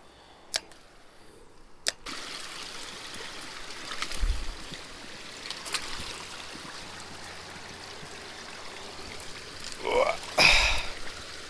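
Shallow creek water trickling and splashing around rubber boots wading through muddy water, starting about two seconds in, with a louder splash near the end.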